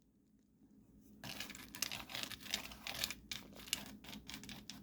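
Chocolate chips being spread around in a baking pan. Starting about a second in, there is a quick, busy run of scratchy rustles and small clicks.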